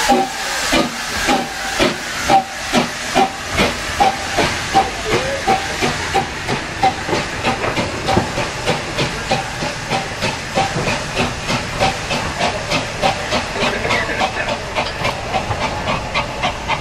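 Hunslet Austerity 0-6-0 saddle tank steam locomotive pulling away, its exhaust beating in a steady chuff of about two to three beats a second that quickens a little as it gets under way, over a hiss of steam.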